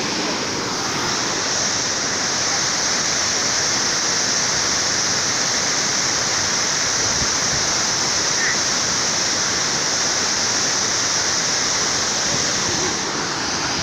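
Karbu waterfall: water pouring down and rushing in a steady, loud hiss.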